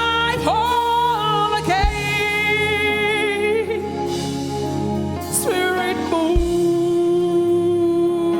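Live gospel worship music: a voice holding long sung notes over an instrumental backing, with a couple of low thuds.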